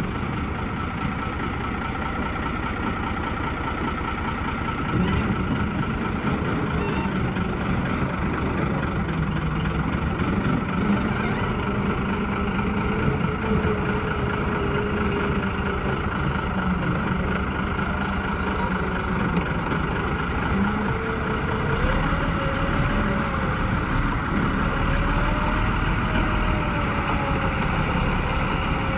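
Engine of a tracked all-terrain vehicle running steadily as it pushes through broken river ice, its pitch wandering up and down and rising a little about three-quarters of the way through.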